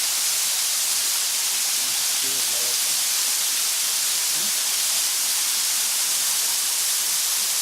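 Waterfall: a steady, loud hissing rush of falling water that does not let up.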